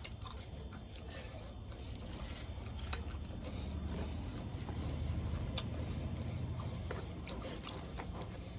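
Close-miked eating sounds: chewing with scattered small wet mouth clicks, and a soft low rumble in the middle.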